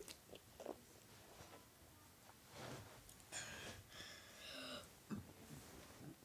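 Near silence with a few faint, hissy breaths close to the microphone.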